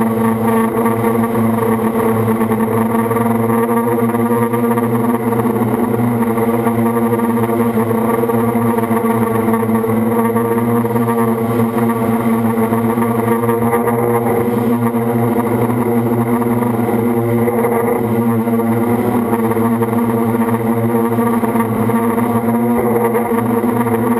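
FPV quadcopter's motors and propellers buzzing at a steady pitch, with only slight shifts in throttle.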